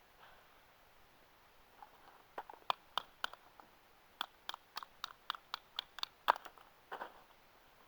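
A wooden baton tapping the spine of a pocket knife to drive the blade through a split stick. It is a run of sharp taps, about four a second, starting a couple of seconds in, with the loudest tap near the end.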